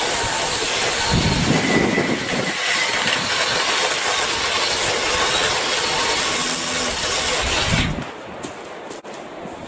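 BLACK+DECKER 18V cordless saw running and cutting garden-tree branches, stopping abruptly about eight seconds in.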